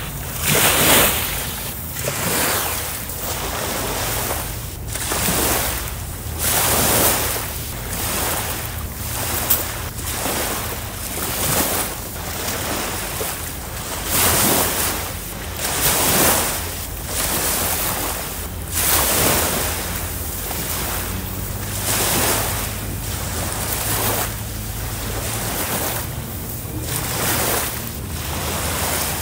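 Small sea waves washing in on a beach, swelling and falling every second or two, with wind on the microphone and a steady low hum underneath.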